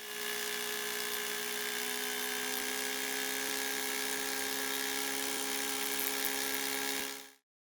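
A steady electric buzzing hum with several fixed tones over a hiss. It fades in at the start and fades out about seven seconds in.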